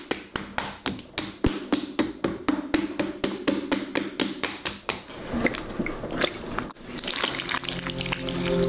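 Quick, evenly spaced wet taps, about four a second, which thin out into scattered irregular taps after about five seconds. Near the end a rising hiss and a low, sustained musical drone come in.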